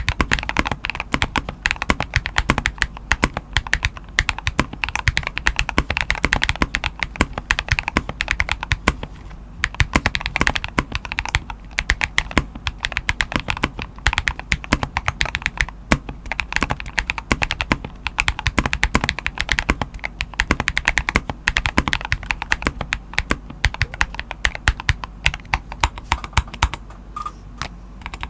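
Continuous fast typing on a modded NK87 Entry Edition mechanical keyboard: a steady, dense stream of key strokes with no pauses.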